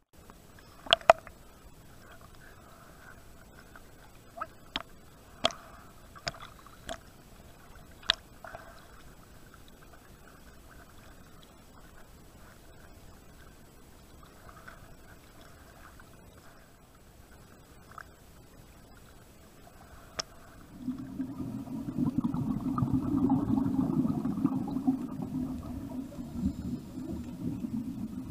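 A camera in the water picks up a few sharp knocks and faint water sounds at the surface. About three-quarters of the way through, a loud low rumbling gurgle sets in: scuba divers' exhaled bubbles heard underwater.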